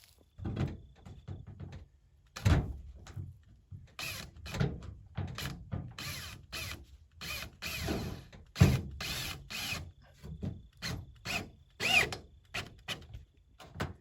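Irregular knocks, clanks and scrapes of corrugated sheet metal and tools being handled and fitted, some strikes with a short metallic ring.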